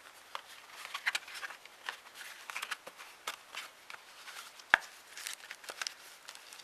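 Paper die-cut pieces being handled on a table: irregular light rustling and clicking, with one sharp tap about two-thirds of the way through.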